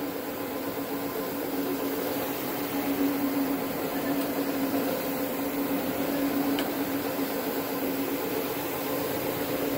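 Two-brush carpet scrubbing machine running as it is pushed over the carpet, its brushes working the fibres: a steady motor hum with a constant low tone.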